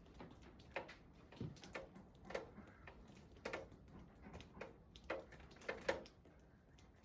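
A series of short, irregular scrapes and knocks, roughly one every half second to a second, with quiet between them.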